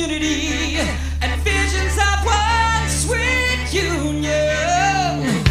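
Background music: a song with a singing voice over a steady low bass note.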